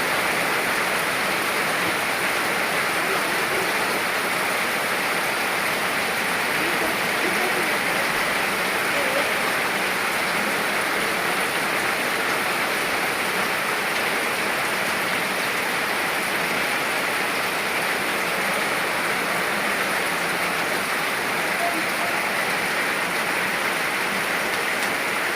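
Steady, even rainfall hiss, without pause or change.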